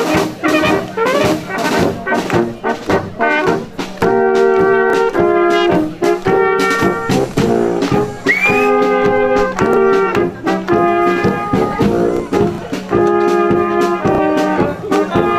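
Brass band with tubas and other brass horns playing a folk dance tune with a steady beat.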